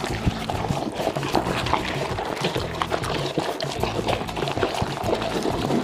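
Background music over Great Dane puppies eating wet food together from one bowl, with quick wet smacking, slurping and chewing clicks.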